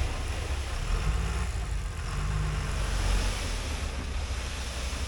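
An engine running steadily, a low drone with hiss over it and no sharp events.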